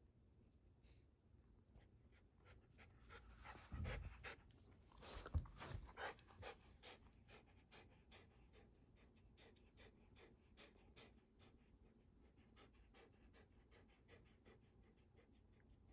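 Shiba Inu panting with its mouth open while being scratched under the chin: a steady run of short, quick breaths, about three a second. A few louder thumps and rustles come about four to six seconds in.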